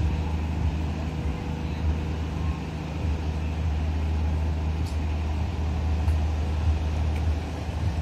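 Passenger train coaches rolling past at speed: a steady low rumble of wheels on the rails, with a few sharp clicks about five and six seconds in.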